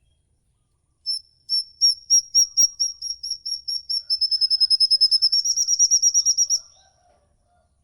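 A songbird giving a long giggling call: high piping notes, spaced at first and then speeding up into a fast trill that stops short after about five and a half seconds.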